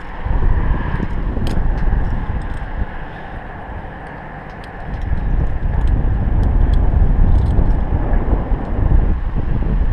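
Wind buffeting the microphone high up on a steel tower: a loud, low rumble that surges, eases off around the middle and surges again. Scattered light clicks and taps sound through it.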